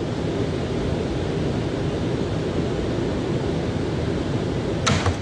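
Steady low rumble of an R179 subway car crawling into the terminal platform, heard from inside the car. A short sharp click cuts in near the end.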